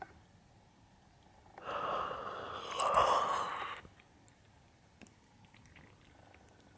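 A long, breathy exhale close to the microphone, lasting about two seconds from just under two seconds in and swelling near its end, followed by a few faint clicks.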